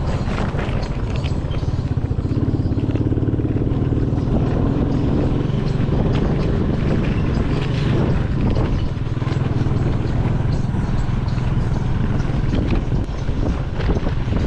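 A vehicle engine running steadily, with rough noise over it that fits wind on the microphone.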